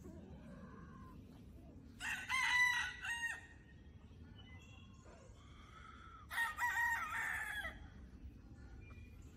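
Gamefowl rooster crowing twice, about four seconds apart, each crow about a second and a half long, with fainter calls between.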